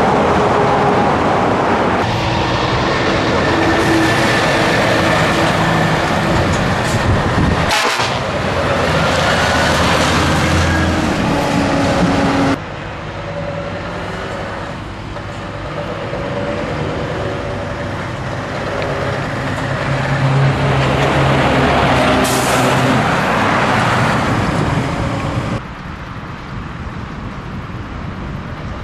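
Scania V8 truck engine running on the road, its pitch rising and falling with the revs, with two brief sharp sounds along the way. The sound drops suddenly in level about halfway through and again near the end.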